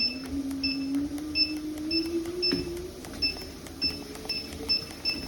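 Elseluck walking pad treadmill beeping once for each press of the speed-up button, about two short high beeps a second. Under the beeps its belt motor whines, rising in pitch over the first three seconds as the belt speeds up, then holding steady.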